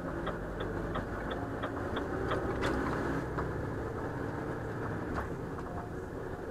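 Truck engine running steadily, heard from inside the cab, with the turn-signal relay ticking about three times a second. The ticking stops about two and a half seconds in.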